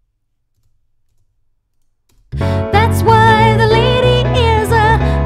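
After about two seconds of near silence, a song starts playing back suddenly: a female vocal singing over a backing track with a pulsing bass line. The vocal has been pitch-edited in Cubase VariAudio, with one note moved up a fifth.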